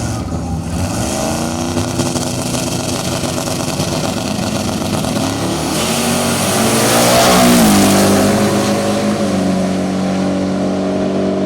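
Drag-racing trucks at full throttle down the strip, the engine note climbing in steps as they shift. Loudest as they pass about seven or eight seconds in, when the pitch drops and then holds steady.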